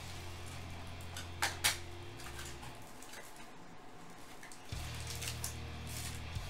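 Hands handling a cardboard trading-card box and its plastic wrapping: light rustling and tapping, with two sharp clicks about a second and a half in. A low steady hum runs underneath.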